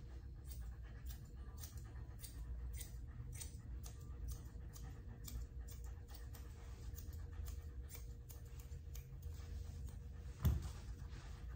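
Grooming shears snipping through a dog's coat, a quick, irregular series of crisp cuts, a few a second. One louder thump near the end.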